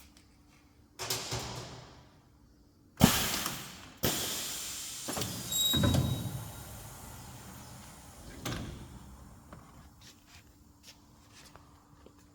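Urban AKS 3900 double-head PVC welding machine working: a short rush of noise about a second in, a sharp clunk about three seconds in, then a long hiss that fades away over several seconds, and another short hiss near the end, over a faint steady hum.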